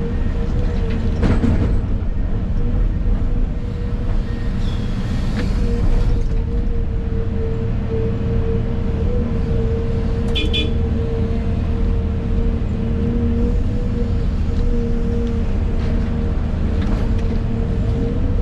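Excavator engine and hydraulics running steadily, heard from inside the operator's cab, a low drone with a steady hum held over it. A few knocks sound about a second in and again around five seconds, and a brief high chirping comes about ten seconds in.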